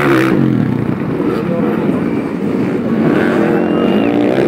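Motocross dirt-bike engines revving, their pitch rising and falling over and over as the riders work the throttle through the jumps.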